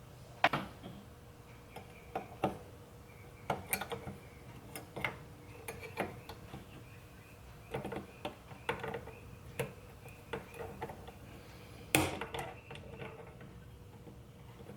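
Irregular clicks, taps and clinks of small metal steering-column parts and tools being handled during disassembly, some with a short ring; the sharpest come about half a second in and about twelve seconds in.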